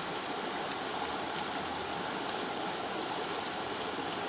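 Steady rushing of a shallow river running over stones.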